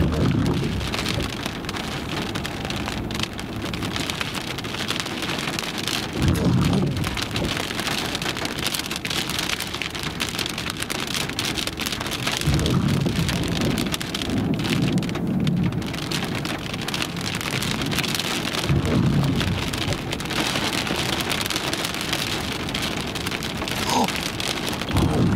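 Heavy rain beating steadily on glass, with several low rolls of thunder every few seconds from a squall line with continuous lightning.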